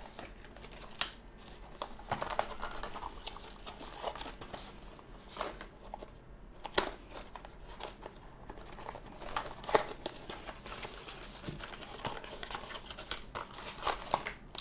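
Product packaging being handled and opened: crinkling and rustling with scattered sharp clicks and taps.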